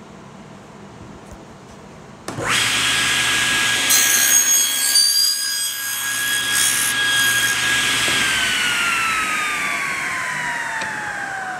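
Table saw switched on about two seconds in, its blade whine steady while a board held upright in a tenoning jig is cut for a bridle joint for a few seconds. Near the end the saw is switched off and the whine falls steadily in pitch as the blade coasts down.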